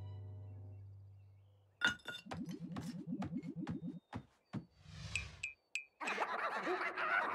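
Cartoon slapstick sound effects: a low held music note fades out, then a sharp hit about two seconds in starts a fast run of clinks, clatters and knocks, with a brief ringing tone and a busier clash of noises near the end.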